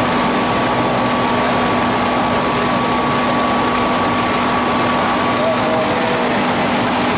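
Hydraulic spindle veneer lathe running, peeling a log into face veneer: a steady, loud machine noise with a constant hum.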